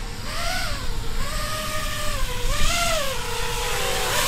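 FPV quadcopter's motors and propellers whining in flight. The pitch rises and falls with the throttle, climbing most about two and a half seconds in.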